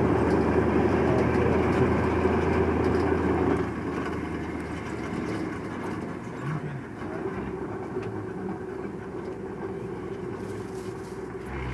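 Vehicle engine idling with a steady low hum, dropping noticeably quieter about four seconds in.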